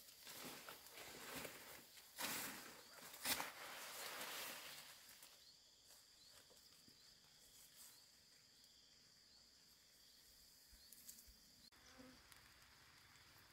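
Faint steady insect trilling in a grassy field, with leaves and grass rustling through the first few seconds.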